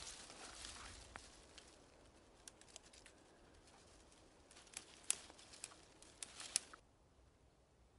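Dry grass and twigs rustling and crackling as hands pull them from dead brush to gather tinder, with a scatter of sharp snaps that stop a little before the end.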